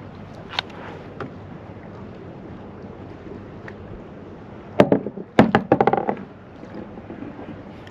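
Wind and water noise on open sea, then about five seconds in a quick burst of knocks and rattles against the plastic fishing kayak, lasting about a second and a half, as a hooked fish is pulled up by the line alongside.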